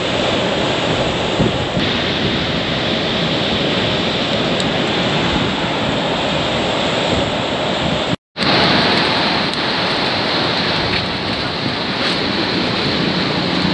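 Waves breaking in a steady rush of surf, with wind buffeting the microphone. About eight seconds in the sound cuts out for a split second and comes straight back.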